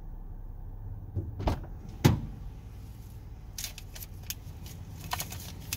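Inside a stopped car with its engine idling, a steady low hum. A couple of knocks come about a second in, then a loud thump about two seconds in, followed by a few light clicks near the end.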